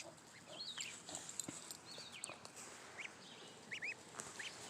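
Goslings peeping faintly: short, high chirps that rise and fall, scattered through and some in quick pairs.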